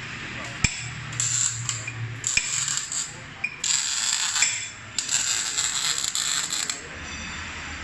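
Stick (arc) welder crackling in four short bursts as tack welds are laid on a Yamaha Mio scooter's steel frame tube. The last burst is the longest, and there is a sharp click under a second in.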